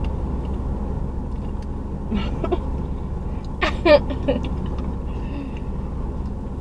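Steady low rumble of a parked car's engine idling, heard inside the cabin, with a brief laugh about four seconds in.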